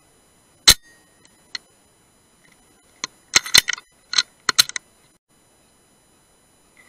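Brocock Sniper HR .177 air rifle firing once with a single sharp crack under a second in, followed by a fainter click. From about three seconds in comes a quick run of metallic clicks as the rifle is cocked and the next pellet loaded.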